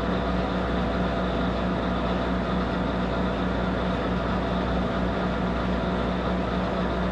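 Monarch 10EE toolmaker's lathe running steadily, its spindle turning at threading speed, with an even hum and a constant low tone.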